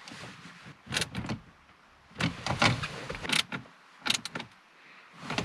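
A screwdriver driving in the bottom mounting screws of a car's dashboard head unit: several short clicks and rasps with pauses between them.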